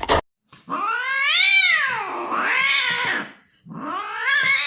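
A cat meowing in two long, drawn-out calls, each rising and then falling in pitch. The first lasts nearly three seconds, and the second starts near the end.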